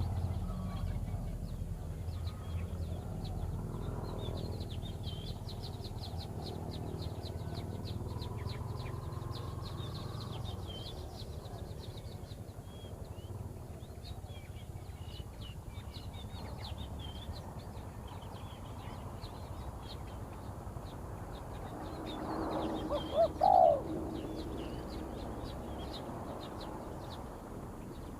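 Small birds chirp in quick high notes throughout, and near the end a spotted dove gives a short, loud coo.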